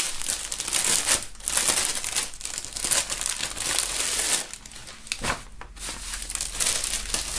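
Clear plastic bag crinkling and rustling in irregular bursts as hands open it and pull a jersey out. It quietens for a moment a little past the middle, then picks up again.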